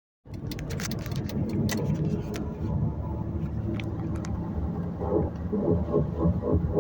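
Car driving with a steady low road rumble and a few sharp clicks near the start; about five seconds in, a rhythmic grinding from the front right wheel comes in, pulsing about three times a second with the tire's turning.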